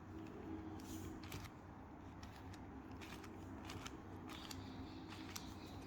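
Faint clicking of a 4x4x4 Rubik's Revenge cube's plastic layers being turned by hand: quick turns in small irregular groups.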